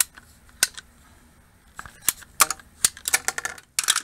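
Ratcheting PVC pipe cutter clicking as its handle is squeezed through 2-inch PVC pipe: a few single clicks, then a quick run of clicks about halfway through, and a louder, denser clatter near the end.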